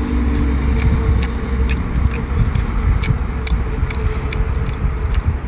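Someone chewing a mouthful of braised pork noisily, with many scattered wet mouth clicks over a low steady rumble.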